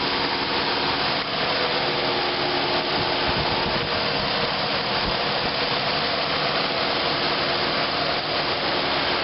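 Engine bay of a GM 3400 V6 idling, with the radiator cooling fan running in high-speed mode as a steady loud rush. There is no belt squeal, since the serpentine belt and tensioner have been replaced.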